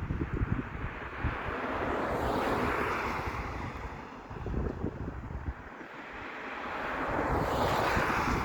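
Wind buffeting the microphone, with a broad rushing noise that swells and fades twice, peaking about two and a half seconds in and again near the end.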